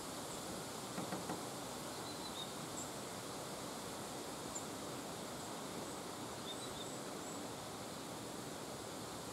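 Woodland ambience: a steady outdoor hiss with a few faint, short, high chirps of small birds scattered through.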